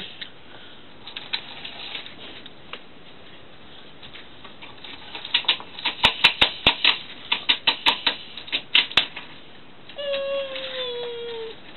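Toy train cars clicking and clacking against the wooden window ledge as they are moved by hand: a run of sharp, irregular clicks for about four seconds in the middle. Near the end a cat gives one long meow that falls in pitch.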